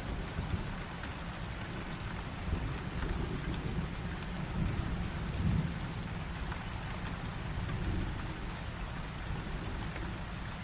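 Steady heavy rain falling with low rolling thunder, rumbling and swelling a few times, strongest around the middle.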